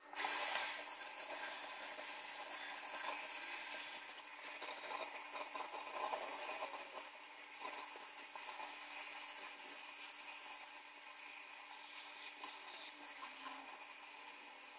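Fleece fabric rubbing and rustling against the phone's microphone, a continuous scratchy crackling that is loudest in the first second, over a faint steady hum.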